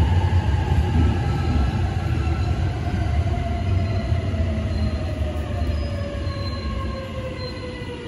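JR East E657 series limited express slowing to a stop at a station platform. A low rumble runs under a whine that falls steadily in pitch, and the sound fades as the train slows.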